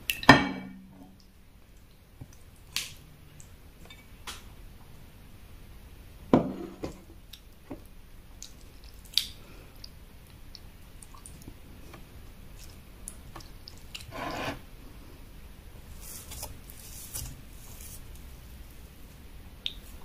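A ceramic bowl knocks sharply against a dinner plate just after the start and again about six seconds in, each time with a brief low ring, as thick egusi soup is emptied onto the plate. In between come small clicks and soft, wet squishes of the soup and eba being handled by hand, with a short scrape about fourteen seconds in.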